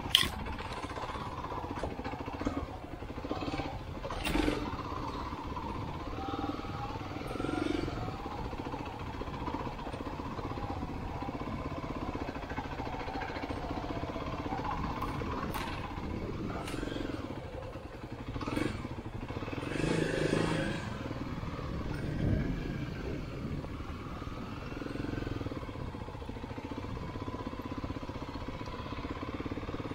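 Dirt bike engine running at low speed, its pitch rising and falling with the throttle, with a few scattered knocks and clatter as the bike rides over a rough, rocky dirt track.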